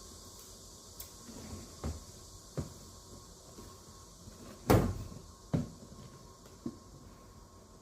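A trash can being knocked about by a cat climbing into it: a handful of hollow knocks and thumps of the bin and its lid. The loudest comes a little past halfway.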